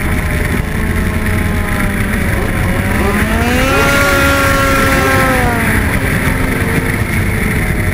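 Racing snowmobiles' two-stroke engines running hard on an ice track; the engine pitch climbs about three seconds in, holds, and drops back about two and a half seconds later as a sled speeds up and then backs off.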